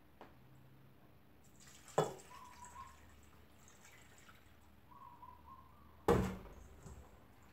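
Kitchenware knocking at a stainless-steel sink: two sharp knocks about four seconds apart, the second louder with a short ringing tail, as a glass and a metal bowl are handled.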